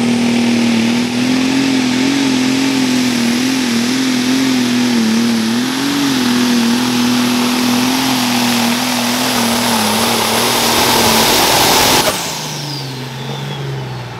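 Light Pro Stock pulling tractor's turbocharged diesel engine running flat out under load, with a high whistle over it. About twelve seconds in the throttle comes off, and the engine and the whistle wind down.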